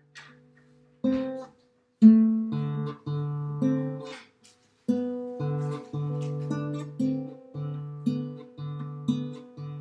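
Classical guitar fingerpicked slowly by a learner, melody notes over bass notes. After a brief near-silent pause the notes come at about two a second, with short breaks between some phrases.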